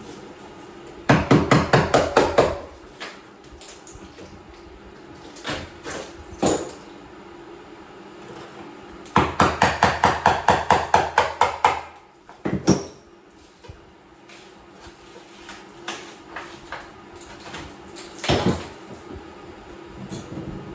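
Rapid hammer taps, about six a second, in two runs of strikes: tile being knocked loose from a shower wall for removal. A few single knocks fall between the runs.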